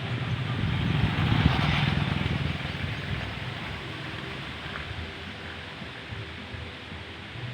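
Wind gusting in the trees and buffeting the microphone: a rushing noise that swells to a peak about a second in, then slowly dies down.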